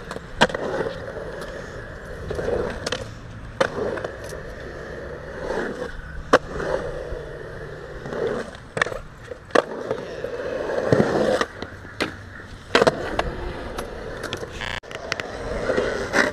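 Skateboard wheels rolling over concrete with a continuous rumble, broken by a dozen or so sharp, irregular clacks of the board.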